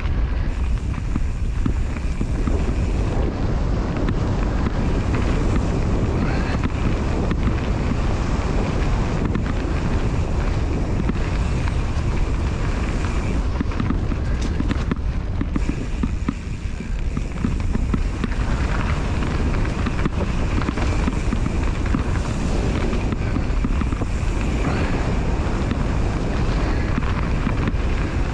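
Wind buffeting the microphone of a mountain bike descending a dirt singletrack, over the rolling of the tyres on the trail and frequent small rattles and knocks from the bike.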